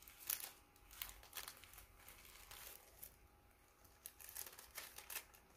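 Faint paper rustling and crinkling with small clicks: pages being handled while a scripture passage is looked up.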